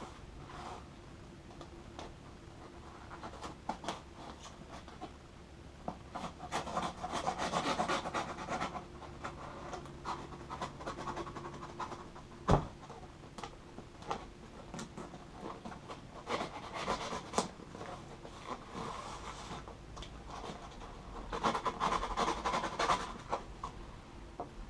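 A cardboard shipping box being cut open with a folding knife and handled with gloved hands: bursts of scraping and rustling as the packing tape is slit and the box is turned, with scattered clicks and one sharp knock about halfway through.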